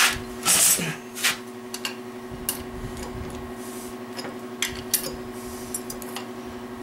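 Hand wrench and socket clicking and clinking against metal while the connecting-rod bolts of an MG 1275 engine are tightened. There are a handful of separate sharp clicks and taps, with a longer rattling burst about half a second in.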